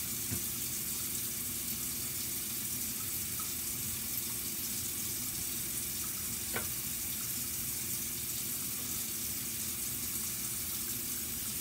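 Air fryer running with bacon cooking inside: a steady fan whir and hiss over a low hum. There is one light knock about six and a half seconds in.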